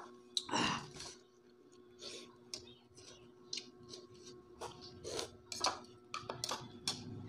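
A metal spoon clinking and scraping against a ceramic soup bowl in short irregular strokes as someone eats soup, over a faint steady hum.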